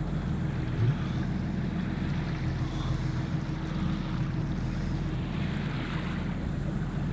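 Fishing boat's engine running at a steady speed, a low even hum, with wind and water noise over it.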